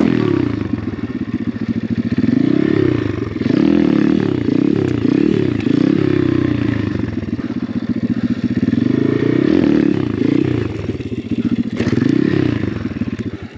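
Apollo RFZ 125cc pit bike's single-cylinder four-stroke engine being ridden, revving up and down over and over as the throttle is opened and closed. There are several quick blips in the first half and longer rises and falls later.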